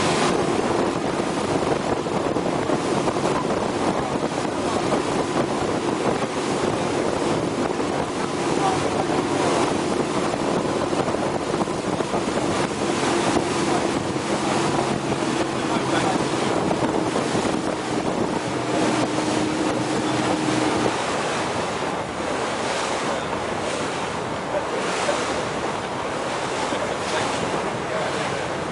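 Motorboat under way: wind buffeting the microphone and water rushing past the hull over a steady engine hum, which drops out about two-thirds of the way through.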